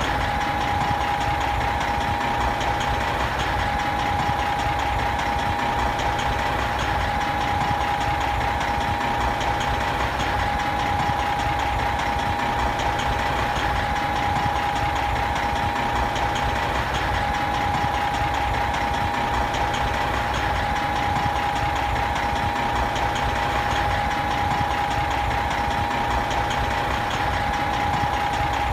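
Big truck's diesel engine idling steadily, with a steady high whine over the rumble.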